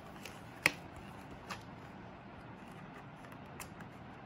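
Paper documentation envelope being opened and handled: a sharp paper snap about half a second in, a softer one about a second later and a faint tick near the end, over low steady background hiss.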